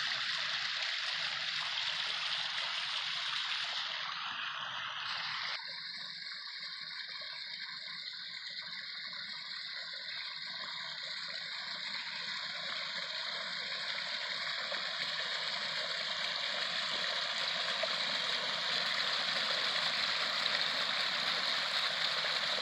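Water running down a newly built pondless waterfall: a steady splashing rush that shifts in character about five seconds in and grows louder toward the end.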